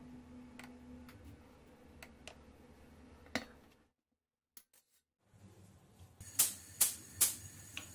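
Faint clinks of a metal spoon against a small stainless steel saucepan as olive oil and butter are stirred. After a short dead gap, three sharp taps come near the end, the loudest sounds here.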